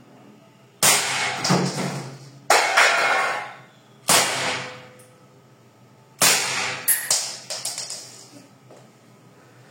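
Four loud, sudden bangs a second or two apart, each fading out over about a second. The first and last are followed by a quick clatter of smaller knocks.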